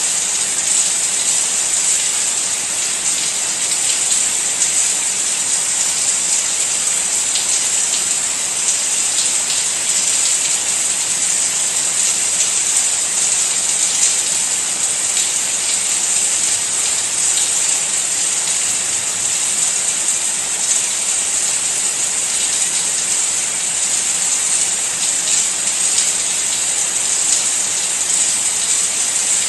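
Steady rain falling: an even, unbroken hiss of drops, bright and high, that holds at one level throughout.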